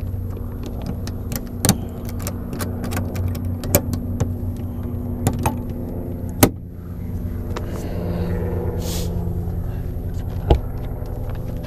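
Sharp clicks and knocks of a helicopter's side panel and latches being handled, over a steady mechanical hum. The loudest knock comes about six and a half seconds in, another about ten and a half.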